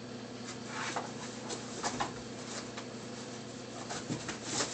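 A puppy shifting in a cardboard box: scattered faint scratches and rustles, a few sharper ones around a second and two seconds in and near the end, over a steady low hum.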